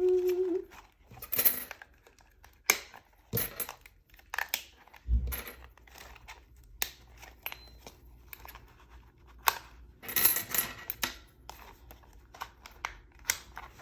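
Metal planner discs clinking and rattling as covers and pages are pressed onto them: a series of sharp clicks and taps, with a dull thump about five seconds in.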